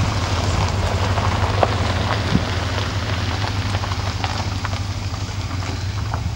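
A minivan driving slowly along a gravel driveway: a steady engine hum with the light crackle of tyres on gravel.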